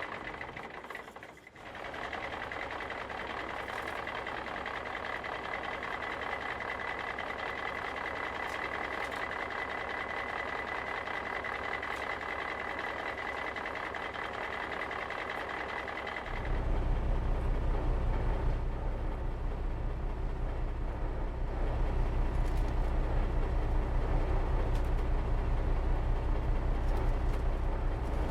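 Heavy construction machine engine running steadily with a high whine. About sixteen seconds in it changes to a louder, deeper rumble.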